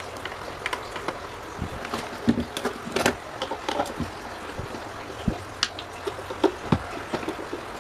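Irregular light clicks and knocks of tools and metal parts handled while an old rusty electric fan is worked on, over a steady hiss.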